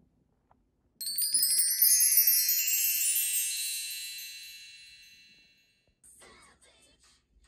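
Sparkly chime sound effect: a shimmering cascade of many high bell-like notes starts suddenly about a second in and fades out over about five seconds.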